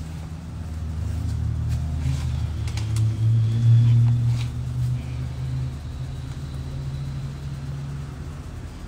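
Low, steady rumble of a motor vehicle's engine, swelling about three to four seconds in and then easing off, with a few light clicks.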